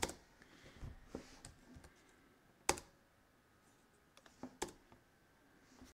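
A few separate keystrokes on a computer keyboard, sharp clicks a second or two apart, the loudest about halfway through.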